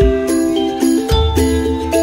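Background music: a light tune of changing melody notes over a steady beat, with a low thump about once a second and bright, jingly high percussion.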